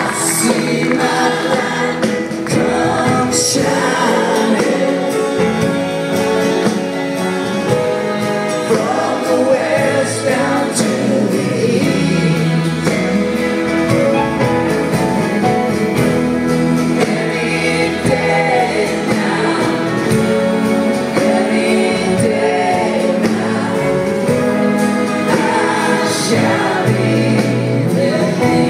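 Live band music with several voices singing together over the instruments.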